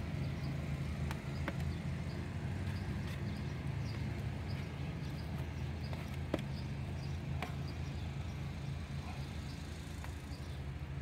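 Hands working olive oil into raw Cornish hens on a metal sheet pan, with a few sharp clicks or taps, the loudest about six seconds in, over a steady low hum.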